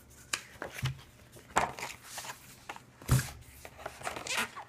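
An oversized hardcover book being handled: several knocks and thumps as it is set down and its cover opened, with rustling of its pages and dust jacket. The loudest thump comes about three seconds in.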